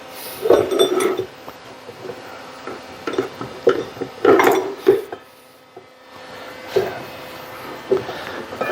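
Small metal drill-press parts being handled and dropped into a container: irregular clinks and clatters of metal on metal, loudest in a cluster about halfway through.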